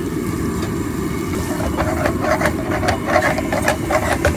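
Steel ladle stirring bubbling melted butter in a non-stick frying pan, clinking and scraping against the pan several times a second from about a second and a half in, over a steady low rumble.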